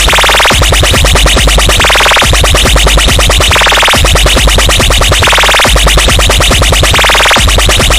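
Loud electronic dance music with heavy bass and a fast, pulsing beat.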